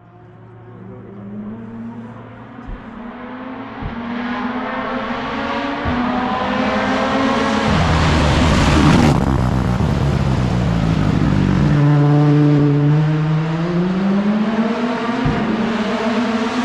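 Rally car engine approaching at speed, its revs climbing through the gears, growing louder until it passes close about eight to nine seconds in. The engine note drops around twelve seconds in, then climbs again under throttle.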